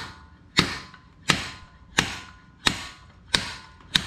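Steady, regular metal-on-metal blows, about one every 0.7 s with a short ring after each, working the drive axle of a 2003 Harley-Davidson Road King's transmission out of its bearing.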